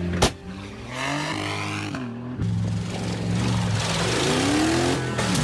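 SUV engine revving hard under acceleration, rising in pitch twice with a steady stretch between. There is a sharp bang right at the start.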